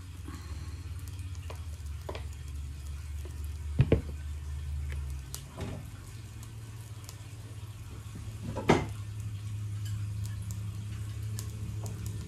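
Pancake batter sizzling in a nonstick frying pan on a gas stove over a steady low hum, with two sharp clatters of cookware, one about four seconds in and one near nine seconds.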